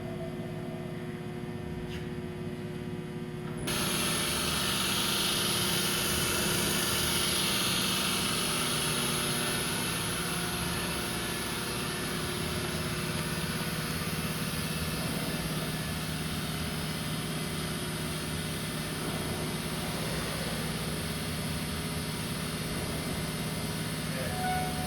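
ACRA AM4V CNC vertical milling machine running under power, with a steady motor hum. About four seconds in, a louder hiss comes in suddenly and carries on.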